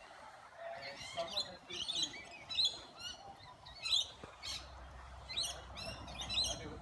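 A flock of lorikeets chattering and screeching, with many short, shrill calls in quick succession.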